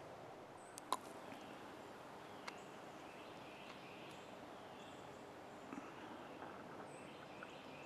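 Quiet woodland ambience with faint, scattered bird calls, broken by one sharp click about a second in and a smaller tick a moment later.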